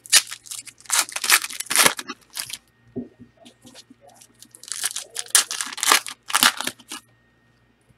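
Trading-card pack wrappers being torn open and crinkled by hand, in two spells of rustling and crackling a couple of seconds apart.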